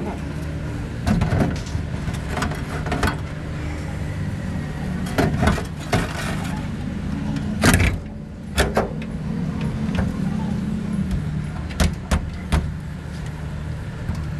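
An engine running steadily with a low hum, with a dozen or so sharp knocks and clanks scattered over it.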